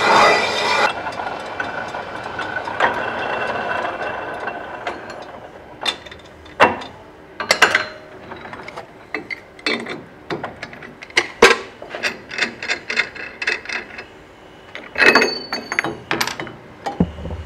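Metal lathe cutting a cast water-pump casing, the tool's screech cutting off about a second in. The lathe then runs down and fades over the next few seconds, followed by scattered sharp metal clinks and knocks as the casing is handled in the chuck.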